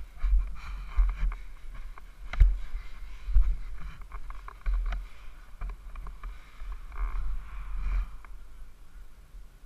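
Single-cylinder four-stroke engine of an SSR150 pit bike running as it is ridden along a rough trail, heard muffled, with low rumbling and several sharp knocks, the loudest about two seconds in.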